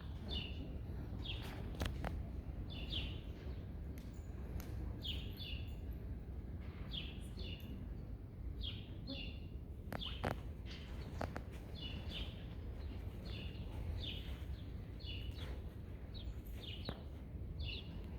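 Small birds chirping over and over, short chirps coming about once or twice a second, over a steady low rumble of background noise, with a few sharp clicks.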